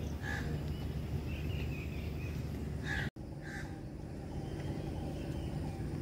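Short bird calls, a few times over a steady low outdoor background rumble; the sound drops out for an instant about halfway through.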